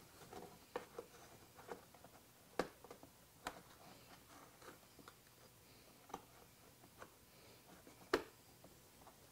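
Faint, scattered clicks and light scrapes of a screwdriver working the plastic fasteners under the front fairing of a Gen 2 Suzuki Hayabusa. A few sharper clicks stand out, one a little under three seconds in and one near the end.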